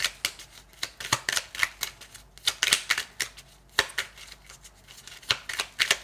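Oracle cards being shuffled and handled by hand: rapid clicking and riffling rustles in several short bursts.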